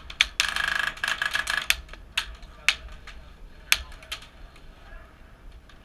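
Airsoft gun firing a rapid full-auto burst of about a second, followed by a few single sharp shots spaced out over the next couple of seconds.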